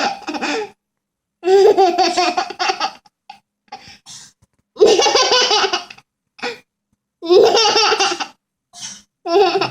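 A young child laughing heartily in about four bouts, each a second or so long, with short breaks between them.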